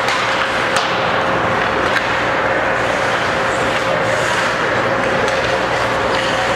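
Ice hockey rink sound during play: a steady noisy wash of skates and arena with a faint constant tone through it, broken by a few sharp clacks of sticks and puck on the ice.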